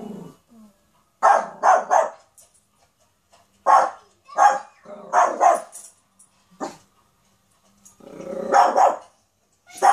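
Yorkshire terrier puppy barking in short bursts: three quick barks in a row, then a few more spaced out, and a longer bark near the end.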